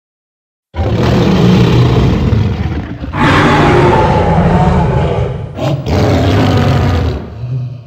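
Godzilla roar sound effect: a long, loud, rough roar that begins under a second in and turns brighter and harsher about three seconds in. It breaks briefly near the end, then trails off.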